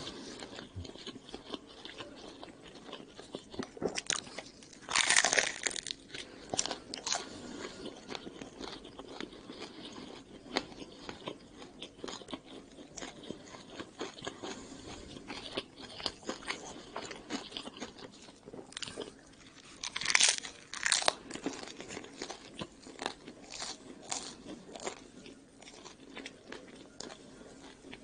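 A person chewing and biting into crusty oriental-style pizza, with many small mouth clicks and smacks. Two louder bites come about five seconds in and about twenty seconds in.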